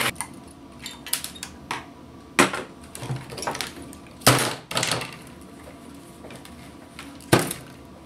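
A few sharp knocks and clatters as a printed circuit board and a soldering gun are handled and set down on a workbench, the loudest about four seconds in.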